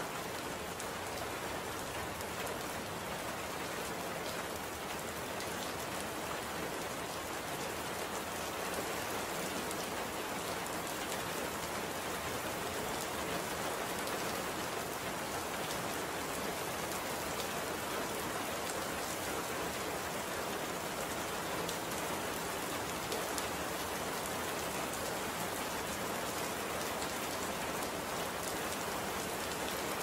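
Steady rain falling: an even hiss of many small drop hits that keeps the same level throughout.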